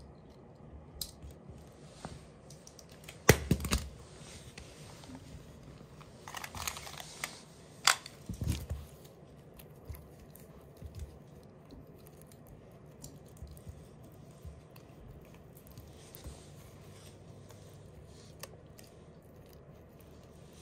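Small Shiba Inu puppy playing with a soft sewing tape measure: scattered light rustling, mouthing and scrabbling noises. A sharp knock comes about three seconds in, and a few more clicks follow around eight seconds.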